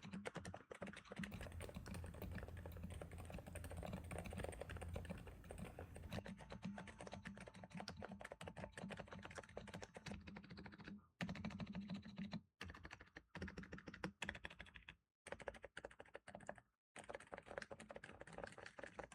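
Faint, muted typing on an Epomaker TH80 V2 Pro mechanical keyboard fitted with Sea Salt Silent V2 silent switches: rapid, dampened keystrokes, with a few brief pauses in the second half.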